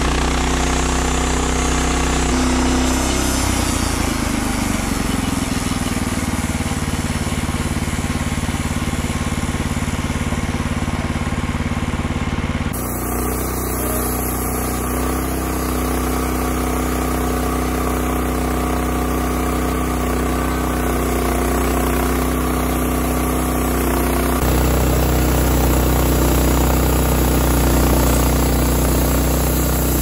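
Gas engine of a portable band sawmill running steadily as the band blade saws through a log. The engine note shifts about three seconds in, and the sound changes abruptly twice, about 13 and 24 seconds in.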